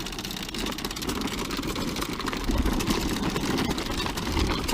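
Small riding lawn mower engine running steadily, a little louder from about halfway.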